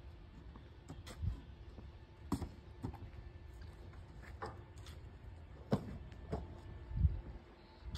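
Irregular knocks and clicks from fence-building work, about nine sharp strikes spaced unevenly over a low steady background.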